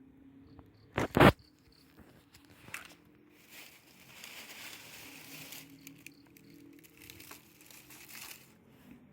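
Crinkling, rustling handling noise lasting a couple of seconds, with scattered small clicks and a sharp double knock about a second in.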